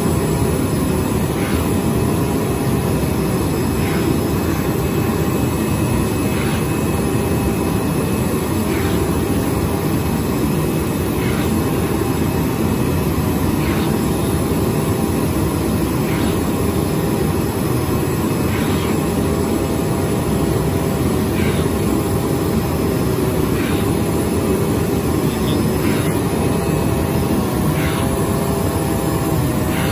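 CNC oscillating knife cutting machine running as it cuts sponge foam: a steady, loud machine drone with a faint whine that shifts slightly in pitch as the head changes direction, and faint ticks every second or two.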